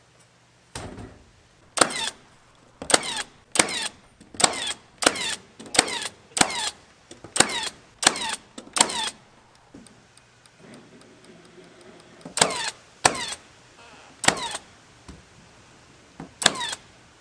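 Nails being driven into coop framing wood with sharp strikes: about ten in quick succession, roughly one every 0.7 seconds, then after a short pause four more spaced further apart.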